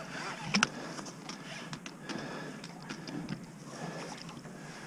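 Irregular light clicks and knocks from a conventional fishing reel and rod being worked as a hooked fish is reeled up beside the boat, over a steady low hiss.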